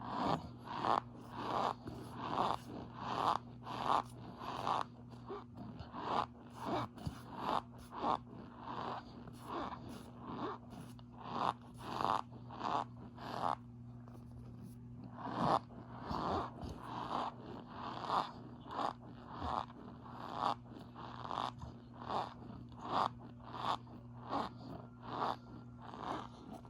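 Pink-tinted cornstarch being compressed over and over, giving the soft squeaky crunch that packed cornstarch makes, about one and a half squeaks a second with a short pause around the middle. A faint steady hum runs underneath.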